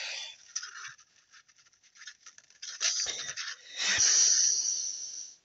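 Cardstock rustling and scraping against a handheld flower-shaped paper punch as it is worked into the punch, with a knock about four seconds in and a longer stretch of loud paper rubbing after it.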